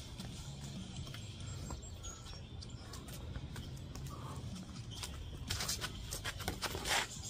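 Boxing sparring footwork and punches: sneakers scuffing and tapping on paving stones and padded gloves slapping, with a flurry of quick strikes and scuffs from about five and a half seconds in. A bird chirps faintly a few times about a second in.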